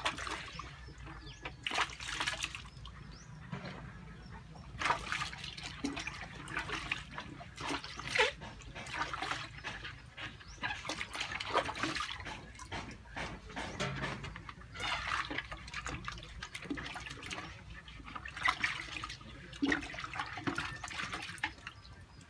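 Water sloshing and splashing in a plastic bucket as taro stalks are dipped and rubbed clean by hand, in irregular swishes.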